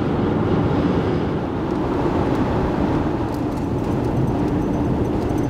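Steady road noise inside a Toyota RAV4's cabin while it is driven down a highway: an even rush of tyre and engine noise with no change in pitch or level.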